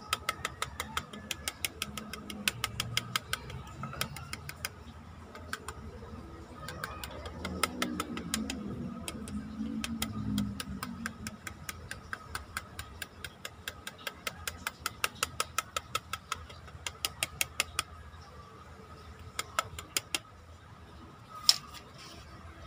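Rapid, even mechanical ticking, about three to four ticks a second, over a faint steady high hum. The ticking stops about eighteen seconds in, followed by a few single louder clicks, the loudest near the end.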